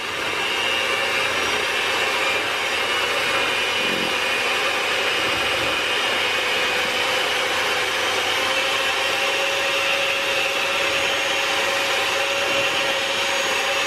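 Hamilton Beach electric hand mixer running steadily with a constant whine, its beaters whipping instant coffee, sugar and hot water in a plastic bowl. The mixture is still thin, at the early stage of beating before it thickens into foam.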